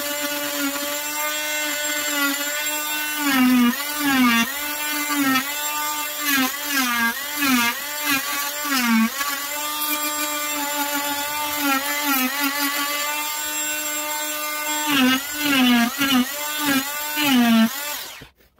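Wesco oscillating multi-tool running with a steady high whine while carving into a block of wood, its pitch dipping again and again as the blade bites into the wood and the motor slows under load. It is switched off shortly before the end.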